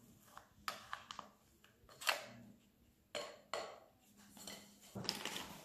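Plastic dough scraper working risen dough out of a glass bowl onto a floured worktop: a series of faint, short scrapes and knocks of scraper and bowl, loudest about two seconds in.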